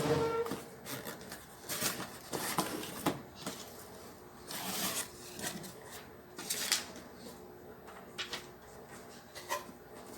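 Scattered, irregular clicks and knocks with some rubbing in between, the sound of objects being handled.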